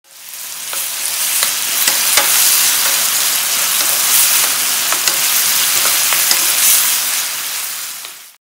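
Garlic cloves and walnuts sizzling in a frying pan of soy-based glaze as a spatula stirs them, with light ticks of the spatula against the pan now and then. The hiss fades in at the start and fades out just before the end.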